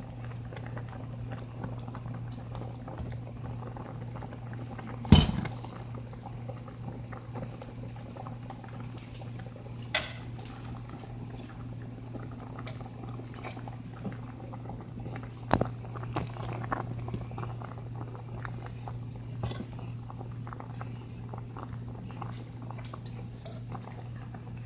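A pot of okra soup simmering and bubbling, with a spoon knocking against the pot four times, loudest about five seconds in. A steady low hum runs underneath.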